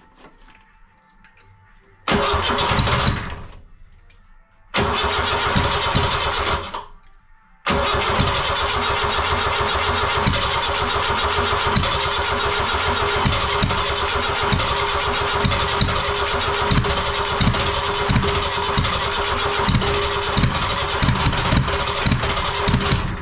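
A Ford Transit's rebuilt 2.5-litre four-cylinder diesel being cranked by its starter for its first start after the rebuild, on starting spray: two short cranks, then a long crank of about fifteen seconds with uneven thumps under the starter whine, which stops abruptly near the end.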